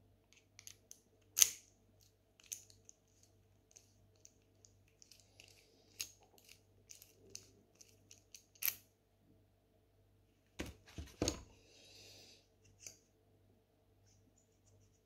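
Small metal clicks and ticks of hand tools working in a Mottura C28 European lock cylinder held in a vise, with a sharp click about a second and a half in. Around ten to eleven seconds in come a few heavier knocks, then a brief scrape.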